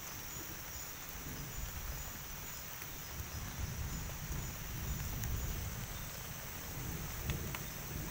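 Night forest ambience after rain: insects chirping in a steady pulsing rhythm over a constant hiss, with an uneven low rumble coming in about a second in.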